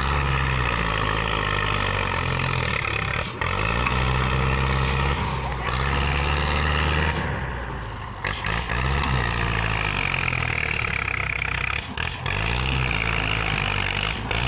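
Belarus tractor's diesel engine running hard under load. Its revs dip and rise again several times as it strains to pull a badly stuck, fully loaded sugarcane trolley.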